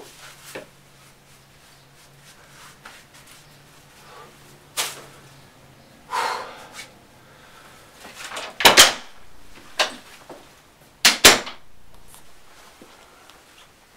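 A door or cabinet being handled and shut in a small bathroom: scattered sharp knocks and clicks, loudest as two quick double knocks about two and a half seconds apart in the second half, with a faint low hum in the first half.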